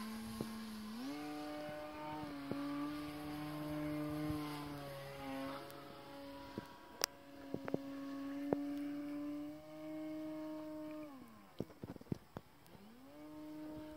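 Radio-controlled model aerobatic plane's motor and propeller droning in flight at a distance. The drone steps up in pitch about a second in, holds with small wavers, sinks away near the end, then climbs again just before the end. A few faint clicks.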